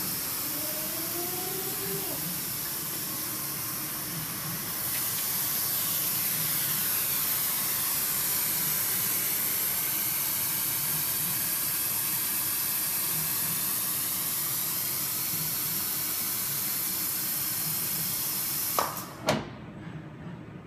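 Steady hiss of compressed air from an industrial robot's vacuum suction-cup gripper holding a glass windscreen. Near the end, two sharp pneumatic clicks and the hiss cuts off suddenly as the vacuum is released.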